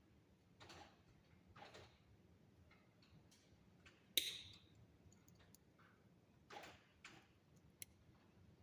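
Faint, scattered clicks and soft brushing sounds of copper wire being handled and bent into shape, with one sharper click about four seconds in.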